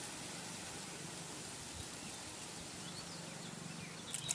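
Faint, steady outdoor background noise. Just before the end, water starts pouring from a bucket into a plastic bottle, with a few short splashes.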